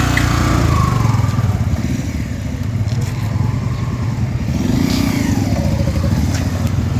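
Motorcycle engine running while riding, its note rising and falling a couple of times with the throttle, over steady road noise.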